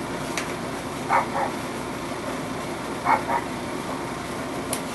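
Yorkshire terrier puppies giving short yips, a quick double yip about a second in and another about three seconds in, over a steady background hum.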